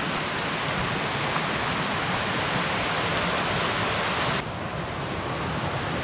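Small woodland cascade spilling into a pool, a steady rushing hiss of falling water. About four seconds in the sound abruptly turns duller as its higher hiss drops away.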